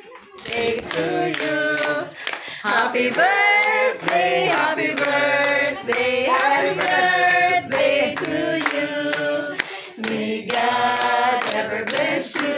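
A small group of people singing together with hands clapping along.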